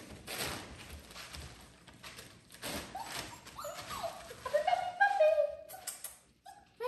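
Blue plastic tarp crinkling and rustling on a hardwood floor as it is handled and a CavaPooChon puppy walks across it. After that comes a run of short, high puppy whimpers and whines, loudest about five seconds in.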